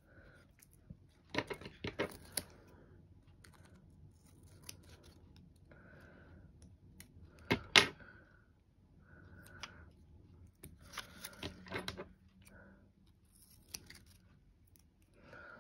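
Hands handling craft materials: scattered light clicks and rustling as adhesive backing is peeled off a sheet, the sharpest click about eight seconds in.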